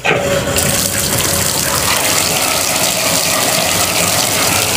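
Tap water turned on and gushing steadily out of a newly installed threaded bathtub spout into the tub. The water comes on suddenly at the start and runs at full flow to test the new spout for leaks.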